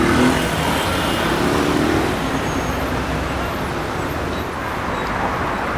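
Dense city traffic in a jam: the steady hum of many idling and slow-moving car and bus engines, with a low engine drone standing out in the first couple of seconds.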